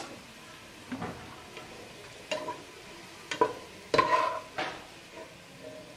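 Metal spatula scraping and knocking against a non-stick pot while scooping fried onions out of the hot oil, about five sharp clanks with the loudest about four seconds in, over a faint steady sizzle of the frying oil.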